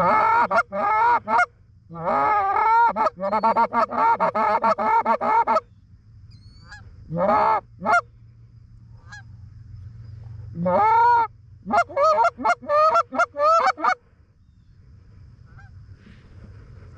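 Canada goose honks and clucks in rapid runs, several bursts of calling with short pauses between.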